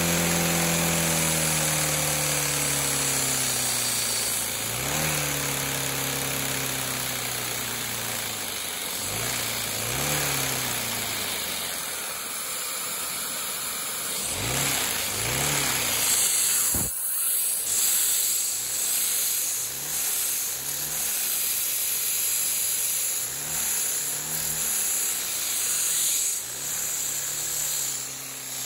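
LEGO vacuum engine running at high speed: its whirring pitch sinks over the first few seconds, then rises and falls again and again as it revs up and down. A single sharp knock comes about 17 seconds in.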